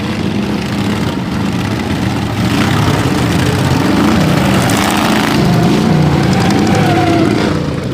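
Several racing ride-on lawnmower engines running together with uneven revving. They grow louder a few seconds in and ease off just before the end.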